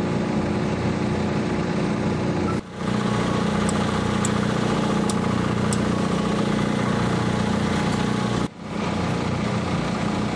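Forklift engine idling steadily, with a few faint metallic ticks; the sound drops out briefly twice.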